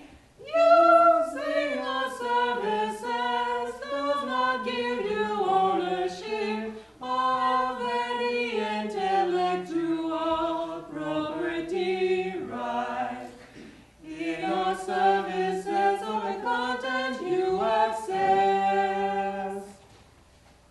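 Small a cappella choir of three voices, a man and two women, singing unaccompanied from a songbook. The phrases break briefly about seven and fourteen seconds in, and the singing stops just before the end.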